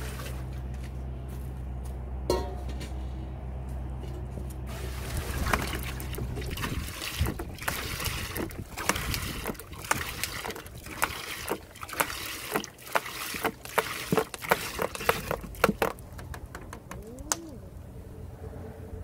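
Soy sauce glugging and splashing as it is poured from a plastic bottle into a large aluminium cauldron, in an irregular run of gurgles that dies down near the end. Before it, a steady low hum and a single clink about two seconds in.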